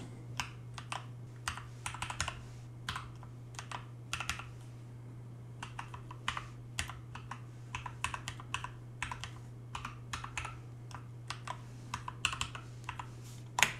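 Typing on a computer keyboard: irregular runs of quick keystrokes with a few short pauses, over a steady low hum.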